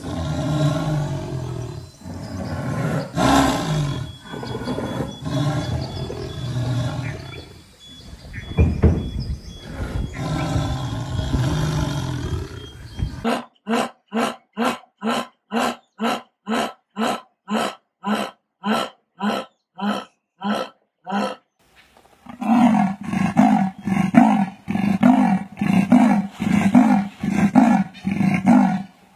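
Jaguar growling and roaring in long, rough snarls. About thirteen seconds in, a black jaguar gives a run of about twenty short, evenly spaced grunts, two or three a second. Near the end a leopard gives its rasping sawing call, slower regular strokes about one and a half a second.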